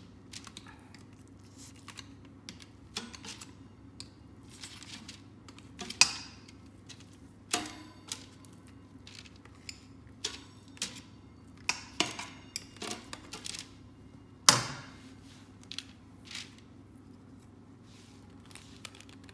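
Scattered light clicks and knocks of a plastic piping syringe being worked over a parchment-lined baking tray as choux dough is piped out, with two sharper knocks about six and fourteen seconds in.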